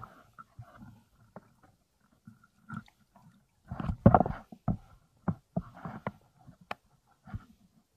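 Irregular sloshing of water and sharp clicks of stones as a hand gropes among rocks and coral rubble in shallow sea water, loudest about halfway through.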